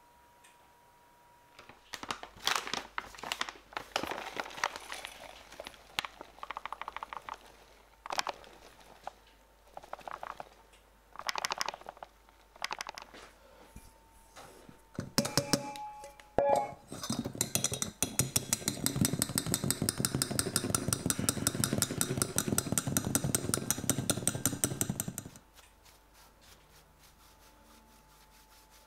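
Cacao powder being sifted through a fine-mesh sieve over a stainless steel bowl. The sieve rattles in short shaken bursts, then its rim clinks against the bowl a few times. A long, even run of rapid rattling follows and cuts off suddenly.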